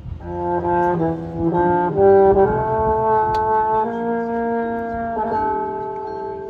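Marching band brass playing chords: a run of short chords, loudest about two seconds in, then broad sustained chords held for several seconds.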